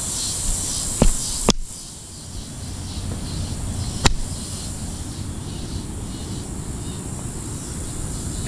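Steady high-pitched chorus of insects, crickets among them, with regular pulsing chirps. Three sharp clicks stand out about 1, 1.5 and 4 seconds in.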